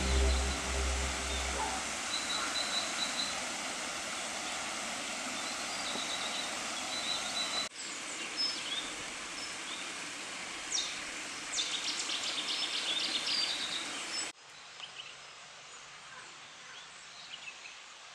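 A stream and a small waterfall running with a steady rushing noise, while birds chirp now and then and give a rapid trill around the middle. The takes change abruptly twice, and the last one is quieter. A music track fades out in the first two seconds.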